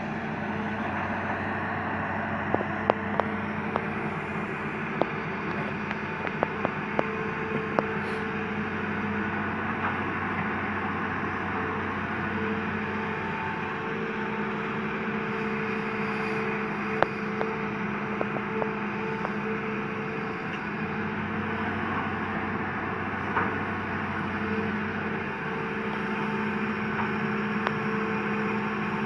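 Hitachi Zaxis 200 hydraulic excavator's diesel engine running steadily as the machine digs, its note shifting a little as the load changes. Several short sharp knocks come in the first several seconds and once more around the middle.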